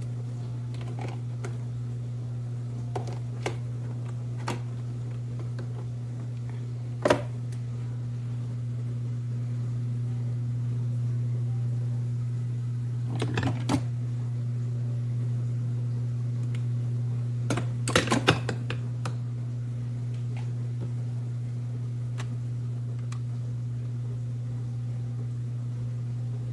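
A steady low hum with scattered clicks and knocks, the loudest about seven seconds in and small clusters of them around thirteen and eighteen seconds in.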